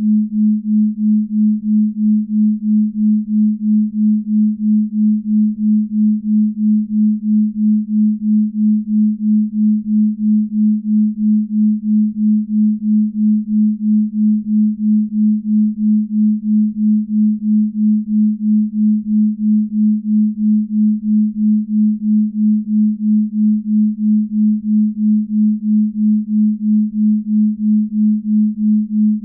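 Binaural beat tones: a steady, low pure tone that swells and fades in an even pulse about two or three times a second.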